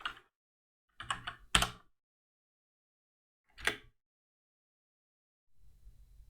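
Clicks of a computer keyboard and mouse: one at the start, a quick cluster about a second in, and another single click a little past halfway, with a faint shuffle near the end.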